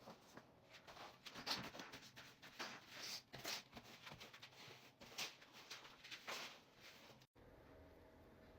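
Faint, irregular rustling, scraping and soft knocks of things being handled and moved while tidying a room, stopping abruptly about seven seconds in, after which only a faint steady room hum remains.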